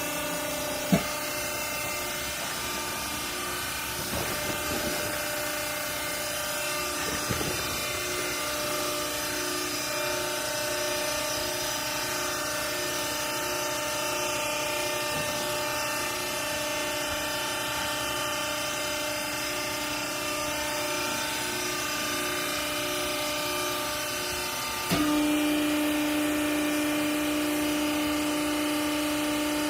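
Hydraulic baler's electric motor and pump running with a steady hum. A sharp click comes about a second in, and about 25 seconds in the sound jumps louder to a strong, steady lower tone.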